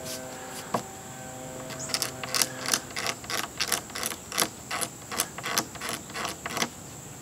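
Razor blade scraping leftover finish off the edge of an oak tabletop by hand, in short repeated strokes, about three a second after the first couple of seconds.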